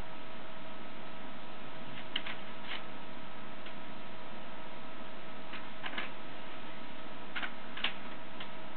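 Light, irregular clicks and taps, about eight of them, from a cat working at the front of a laser printer with its head and paws against the plastic casing. Under them runs a steady electrical hum with a few constant tones.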